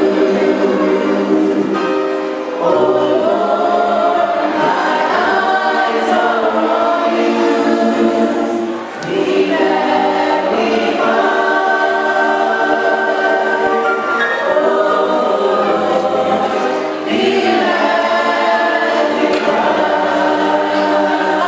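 Many voices singing a hymn together in harmony, in long held notes, with short breaks between phrases about 3, 9 and 17 seconds in.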